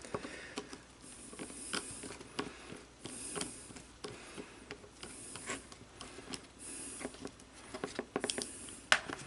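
Irregular small clicks and short scrapes of a screwdriver and metal lock parts being handled as the screws of a P1853 Enfield musket lock are worked loose.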